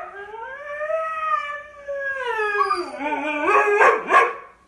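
A husky howling: one long drawn-out call that rises and then slowly falls, breaking into shorter, rougher wavering yowls that stop just before the end. It is a protest howl from a husky kept waiting for treats.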